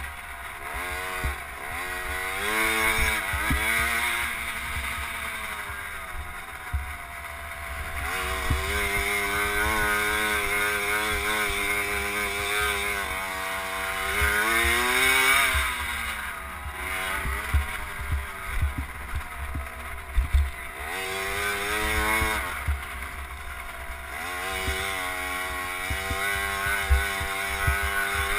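KTM SX50 youth motocross bike's small single-cylinder two-stroke engine, heard from an onboard camera, revving up and dropping off again and again as it is ridden around a dirt track. A low wind rumble runs underneath, and there are a few sharp knocks, mostly in the second half.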